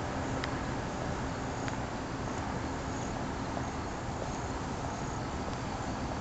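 Steady outdoor noise with a low rumble from a handheld camera carried at walking pace, with a couple of faint clicks and a few faint, brief high-pitched chirps.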